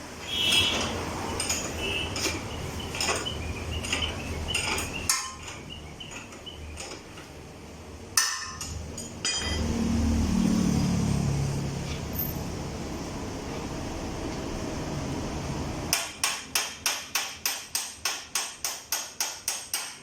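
Hammer blows on metal during motorcycle tyre work: scattered knocks and clicks, then near the end a quick, even run of strikes, about three to four a second.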